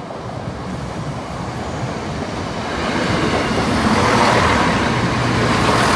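East Midlands Railway Class 170 Turbostar diesel multiple unit approaching and passing close by, its underfloor diesel engine running and its wheels rolling over the rails. It grows louder from about two and a half seconds in as the train comes alongside.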